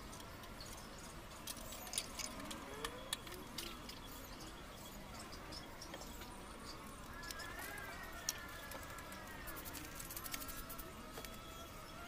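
Light clicks and knocks of wooden boards and corner clamps being handled on a workbench. A drawn-out animal call sounds in the background from about seven seconds in.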